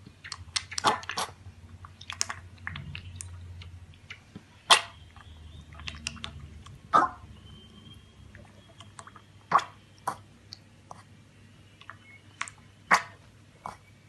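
Chewing, heard as irregular sharp crunches and clicks, with four louder crunches spread through it.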